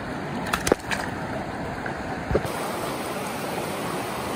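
Steady rush of a river flowing over rocks, with a few short sharp sounds, the loudest just under a second in and another a little past two seconds.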